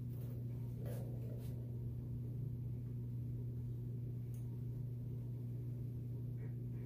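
A steady low hum with a few faint, short clicks.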